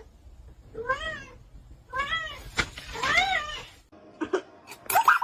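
A cat meowing three times, about a second apart, each meow rising and then falling in pitch. A few sharp clicks and a loud, high-pitched cry come near the end.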